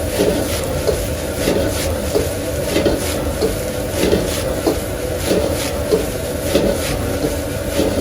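Metal spatula scraping and tapping against a hot cooking surface as fried rice is stir-fried, about one stroke every half second, over a steady low rumble.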